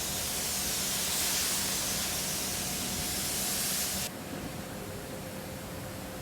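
Compressed-air paint spray gun hissing steadily as it sprays, then shut off abruptly about four seconds in.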